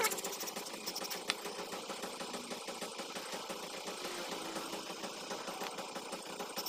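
Faint, steady engine running in the background, with a single light click about a second in.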